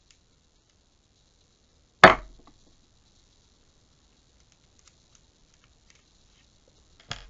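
A loud sharp clack of hard objects knocking against a hard surface about two seconds in, then faint small clicks and a second, softer clack near the end: handling a metal Zippo lighter insert and screwdriver.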